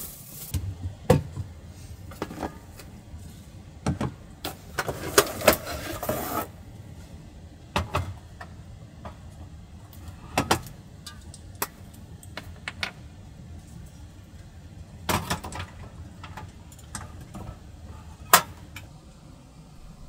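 Camping cooking gear being handled: scattered clicks, clinks and knocks, with a couple of seconds of rustling about five seconds in, over a low steady background noise.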